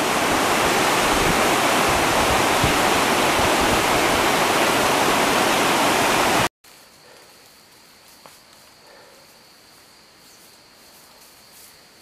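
Rushing water of a rocky mountain stream, a loud steady noise that cuts off abruptly about six and a half seconds in. It gives way to a quiet woodland background with a faint steady high-pitched tone.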